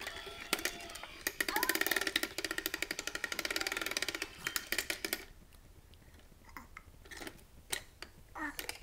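Electronic musical toy ball playing a tinny jingle of rapid beeping notes for about five seconds, then falling quiet but for a few light clicks as it is handled.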